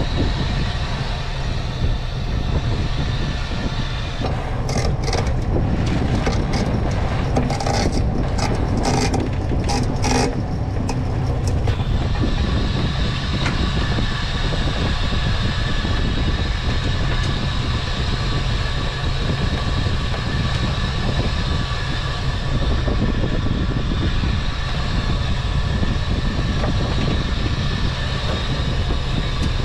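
Small fishing boat's engine and pot hauler running steadily. A cluster of sharp knocks and rattles comes between about four and twelve seconds in, as a steel-framed king crab pot is hauled up and landed on the rail.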